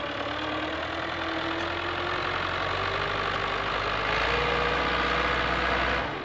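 Fiat 640 tractor's diesel engine running under load as it pushes sand with its front blade, its pitch rising slowly and growing louder about four seconds in.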